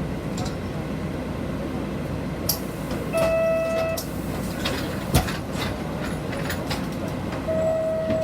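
Inside a Nishitetsu city bus on the move: the steady low rumble of the engine and road noise. Two short electronic beeps sound, one about three seconds in and one near the end, and there are a couple of sharp knocks.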